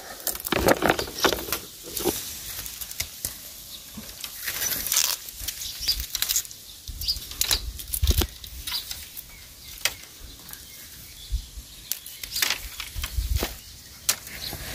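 Dry bamboo twigs and stems rustling and crackling as a hand pushes into a dense bamboo clump, with irregular short clicks and snaps.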